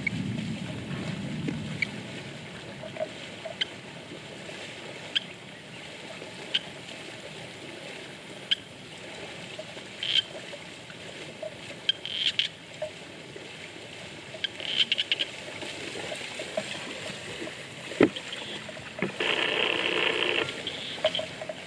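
Water buffalo wading through shallow floodwater: irregular splashes and sloshing of legs and hooves in the water. A sharp knock comes near the end, followed by a longer rush of water lasting about a second and a half.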